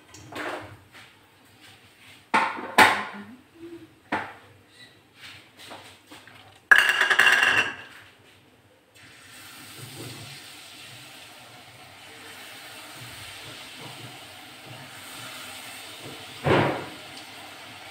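Kitchen utensils clattering: a wooden spatula knocking in a kadhai and against a plate in a run of separate knocks. A loud rustle comes about seven seconds in, then a steady hiss from about nine seconds, with one more knock near the end.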